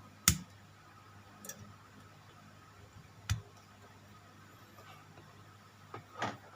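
Scattered sharp clicks and taps of small plastic model-kit parts and tools being handled: one loud click just after the start, a faint one, another about halfway, and two close together near the end, over a faint low hum.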